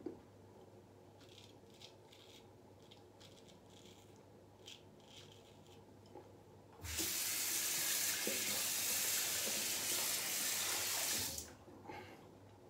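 Bathroom sink tap turned on and running into the basin for about four and a half seconds, then shut off.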